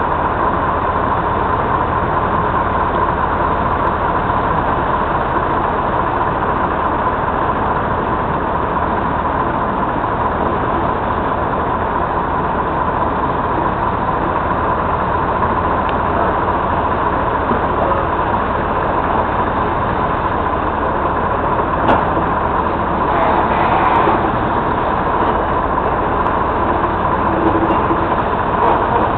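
EMD G22U diesel-electric locomotive running steadily as it works a string of grain hopper cars, with a steady high whine over the engine.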